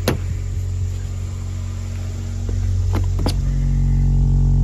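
Jenson 12-inch car subwoofer playing a steady 45 Hz test tone, a deep drone with a stack of higher overtones, that grows louder about two and a half seconds in as the car door opens. Sharp clicks of the door handle and latch come right at the start and twice about three seconds in.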